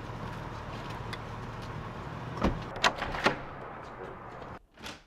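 Luggage being unloaded from an open car: three sharp knocks and thuds about two and a half to three and a half seconds in, over a steady background hum. The hum cuts off near the end.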